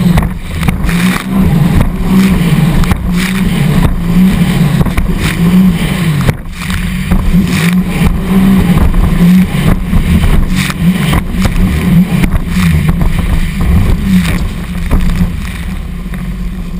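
Sea-Doo 255 personal watercraft's supercharged four-stroke engine running at speed, its pitch wavering up and down as the craft bounces over the chop. Spray and hull slaps on the waves come about once a second, and the engine eases off a little near the end.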